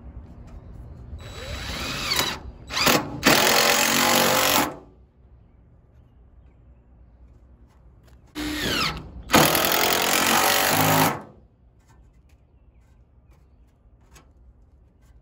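Cordless impact driver driving screws through corrugated roofing tin into wood, twice. Each run starts with the motor whining up in pitch, then turns into a loud rapid rattle as the impact mechanism hammers the screw home, and stops after about two seconds.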